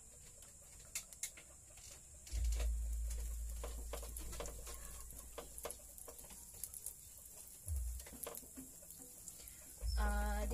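Butter melting in a hot non-stick pan, with scattered crackles and pops and a silicone spatula scraping and tapping the pan as it is pushed around. A low rumble runs under it from about two seconds in to about eight seconds.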